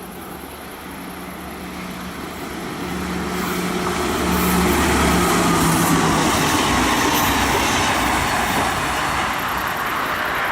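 Train running by, a continuous rumble with a low hum that grows louder over several seconds, peaks around the middle, then eases off a little.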